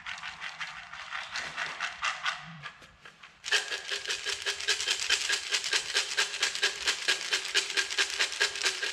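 Soybeans rattling in a hand-shaken plastic cup as they are coated with a dry seed-lubricant powder. A fast, even rattle of about six shakes a second, getting much louder about three and a half seconds in.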